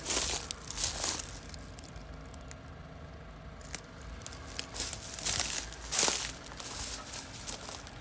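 Footsteps crunching through dry leaves and mulch, in irregular bursts with the loudest crunches near the start, about a second in, and again around five to six seconds in. A faint steady hum runs underneath.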